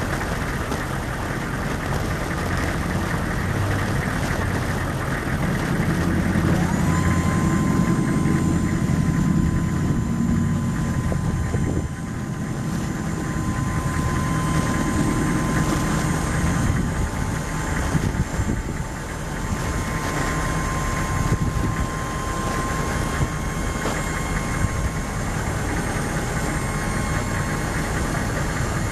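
The 6.5-litre V8 diesel engine of a 1998 GMC Sierra 3500HD pickup idling steadily. A thin steady whine joins in about a quarter of the way through.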